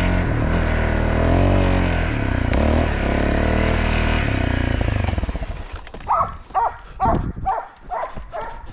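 Dirt bike engine running with wavering revs, fading out about five seconds in. From about six seconds in, a hunting dog barks repeatedly, about two barks a second, as it bays at a wild boar.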